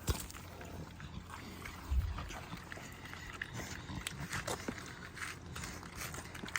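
Pigs grunting and snuffling, with scattered short clicks and two low thumps, one at the start and one about two seconds in.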